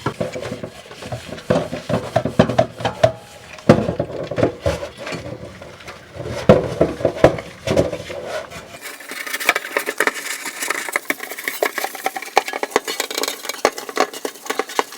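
A sponge scrubbing the inside of a stainless steel pot in a slurry of baking soda, oil and detergent, a fast run of scratchy rubbing strokes. This is the scrub that removes the factory polishing compound from a new pot. About nine seconds in the sound turns thinner and brighter.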